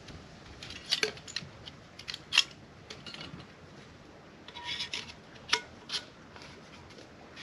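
Small camp items being handled on a tabletop: a scatter of sharp clicks and clinks, the loudest about two and a half seconds in, and a short crinkling rustle of a packet about five seconds in.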